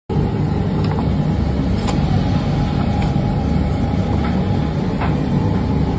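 A loud, steady low rumble with a few faint, short clinks of metal tongs against clay pots, about one every second.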